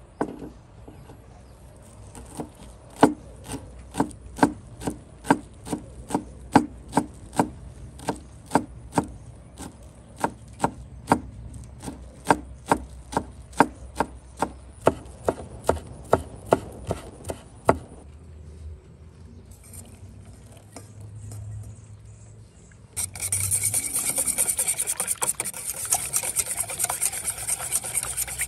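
Food preparation with hand utensils: a run of sharp knocks, about two a second, that stops about two-thirds of the way through. After a short lull, a steady fast scraping starts near the end and is louder than the knocks.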